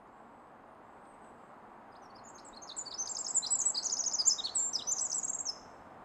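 Pacific wren singing: one burst of very high, rapid, tumbling trills lasting about three seconds, starting a little over two seconds in and stopping abruptly.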